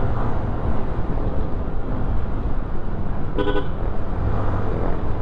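Steady wind rush and engine noise from a motorcycle in motion. A single short horn beep sounds about three and a half seconds in.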